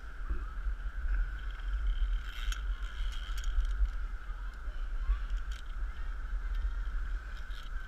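Low rumble of wind and movement on a head-mounted action camera, over a steady high-pitched hum, with a few sharp metal clicks of climbing carabiners on a steel safety cable.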